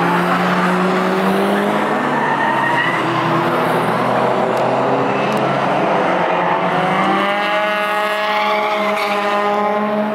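Racing cars' engines running hard around the circuit, their pitch rising and falling with the revs, with a climb in pitch over the last few seconds, over a steady rush of tyre noise.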